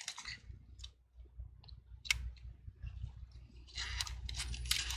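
Small plastic clicks and handling noise as gloved hands fit a flat ribbon cable into its connector on a laptop motherboard: a few scattered clicks at first, then a busier stretch of rustling and clicking from about four seconds in.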